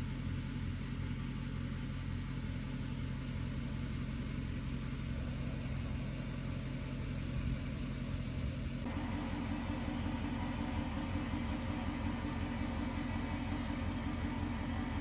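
Truck engine running steadily, its pitch and tone shifting abruptly about nine seconds in.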